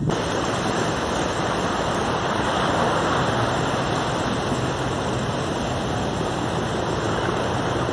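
A steady, even rushing noise with no distinct events, like outdoor surf or wind ambience.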